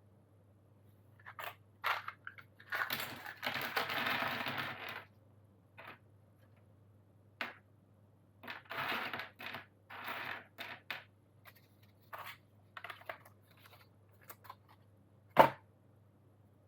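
Plastic packaging of Gateron Yellow switches being handled: crinkling rustles in several bursts, with scattered light clicks and one sharp click near the end.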